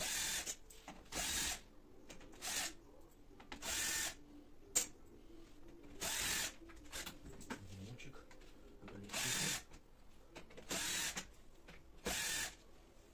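Cordless drill-driver run in short bursts of about half a second, some nine times, backing screws out of a balcony door's locking hardware.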